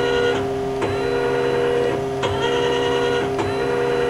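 Miyano BND34T5 CNC lathe's B-axis servo being jogged: a motor whine that stops and starts roughly every second, with a click at each stop or change of direction, over the steady hum of the running machine.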